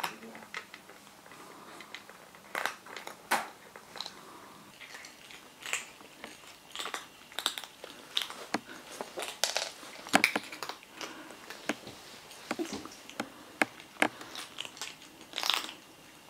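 British Shorthair kittens crunching dry kibble: an irregular run of short, sharp crunches and clicks as they chew.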